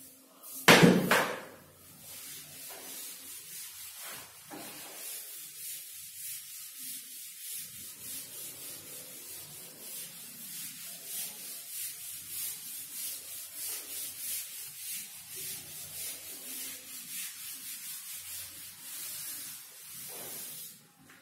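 A chalkboard duster wiping chalk writing off a chalkboard, in quick, even back-and-forth strokes.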